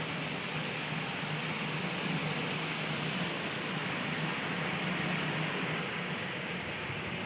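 Water rushing steadily through a river weir (bandhara), a constant even rush with no breaks.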